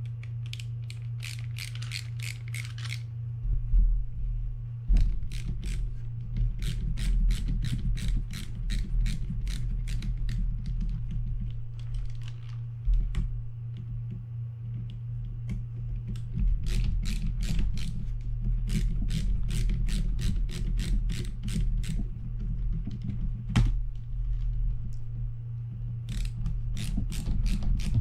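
Ratcheting screwdriver clicking in runs of about three clicks a second, with pauses between runs, as screws are backed out of a Shimano TLD 25 reel's side plate. A few louder handling knocks and a steady low hum lie underneath.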